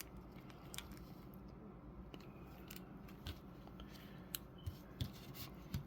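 Faint, scattered clicks and light scrapes of small hard plastic action-figure parts being handled and worked at the neck peg.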